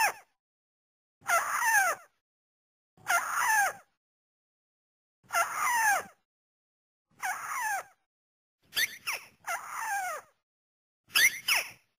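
White-browed crake calls from a bird-lure recording: a series of short calls, each sliding down in pitch, about one every one and a half to two seconds with silence between. There is a quick run of stuttered notes about nine seconds in.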